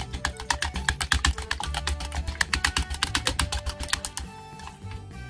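Wooden chopsticks beating raw eggs with mayonnaise in a mixing bowl, rapid clicking of the chopsticks against the bowl that stops about four seconds in.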